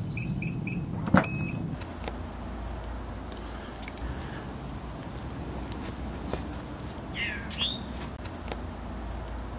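Crickets chirping steadily, with a sharp click about a second in and a few softer knocks as an Infiniti FX35's liftgate is unlatched and lifted by hand, its power-liftgate struts too weak to raise it.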